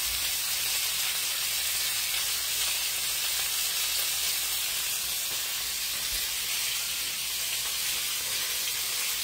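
Blackened chicken thighs frying in oil in a pan, sizzling steadily.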